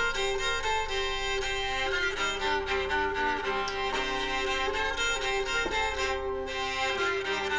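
Background music led by violin, with bowed string notes held and changing.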